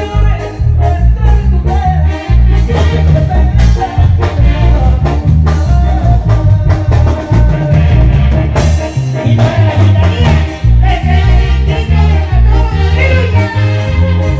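Live band music played on electronic keyboards and a drum kit, with a steady driving beat and heavy bass.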